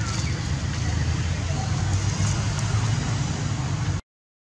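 Steady outdoor background noise: a low rumble with a hiss over it. It cuts off abruptly to silence about four seconds in.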